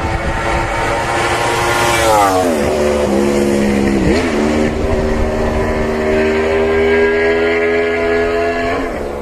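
Motorcycle engine running at high revs, its pitch sliding down about two seconds in, dipping sharply and picking up again near four seconds, then holding steady before easing off near the end.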